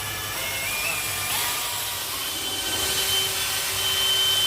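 Power drill with a mixing paddle running steadily, stirring drywall joint compound; its motor whine steps up in pitch about a second in.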